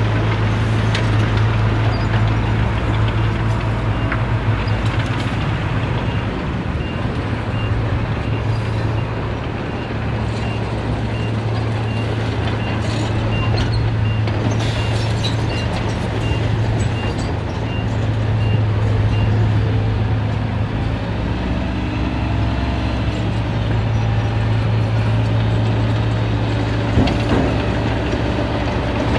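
Heavy construction machinery's diesel engine running steadily under work, a constant low drone, with a faint series of evenly spaced high beeps through the middle.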